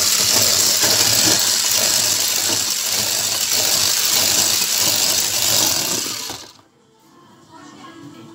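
Electric hand mixer with twin beaters running steadily, whipping a batter of eggs, sugar and sunflower oil in a plastic basin, then switched off about six seconds in.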